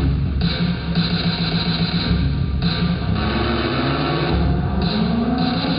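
Live band music from a concert: a pounding, repeating drum pattern over a low bass, with a pitch that starts sliding slowly upward near the end.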